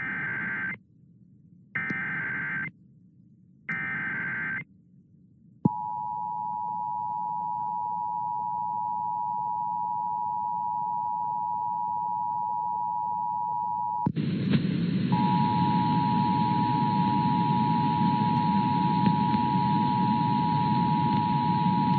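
Emergency Alert System header tones: three bursts of about one second each of screechy digital SAME data, then the steady two-tone EAS attention signal. About fourteen seconds in, a loud hiss of static joins the tone, which drops out for about a second and then carries on.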